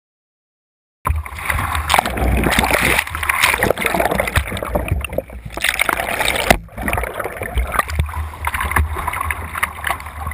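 Pool water splashing and rushing around a GoPro mounted on a kayak's bow as the kayak rolls over and comes back upright, with a low rumble throughout. It starts abruptly about a second in and drops briefly about two-thirds of the way through.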